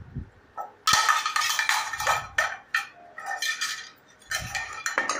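Metal ladles and spoons clanking and scraping against a black cooking pan in quick, irregular strikes, each with a short metallic ring. The clanking starts about a second in and comes in clusters, with a brief lull partway through.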